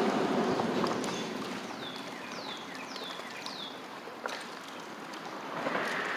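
Steady outdoor background noise with a bird calling a quick series of four or five high falling chirps in the middle, followed by a single sharp click.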